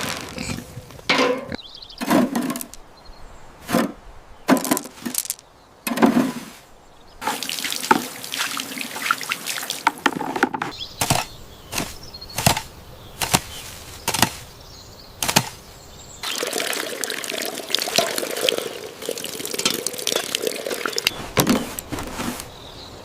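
Water running and splashing, as at a sink, with many irregular clattering knocks.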